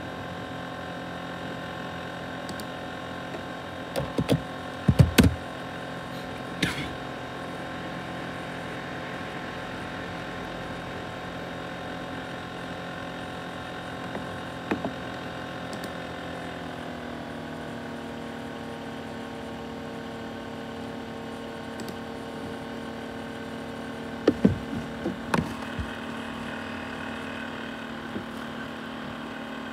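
Laptop CPU cooling fan running with a steady whine of several tones, which shifts slightly lower about 17 seconds in. Sharp knocks come around 4–5 seconds, once near 15 seconds and again around 25 seconds.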